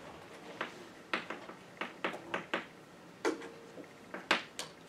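Chalk writing on a blackboard: a string of quick, irregular taps and short scrapes as the letters are stroked out.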